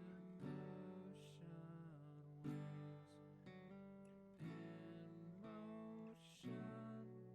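Quiet background music on acoustic guitar, chords plucked or strummed every second or two and left to ring.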